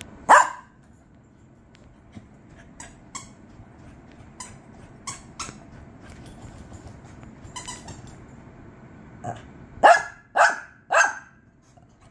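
Small Shih Tzu-type dog barking: one sharp bark at the start, a few softer yips in the middle, then three loud barks in quick succession near the end.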